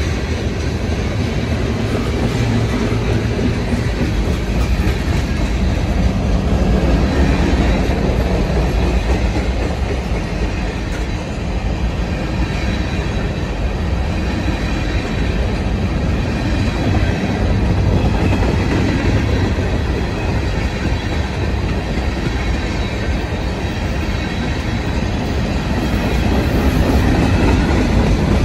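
Freight cars of a Union Pacific manifest train, mostly covered hoppers, rolling past with a steady rumble and clatter of steel wheels on rail.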